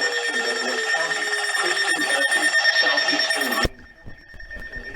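Electronic weather alert alarm tone sounding between warning messages, cutting off abruptly about three and a half seconds in, followed by a click near the end.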